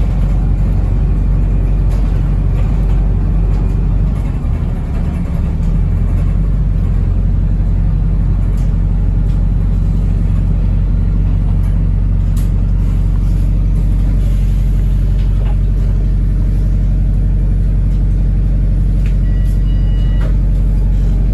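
Steady low drone inside a Wrightbus New Routemaster diesel-electric hybrid bus while it is being driven, with a short high tone near the end.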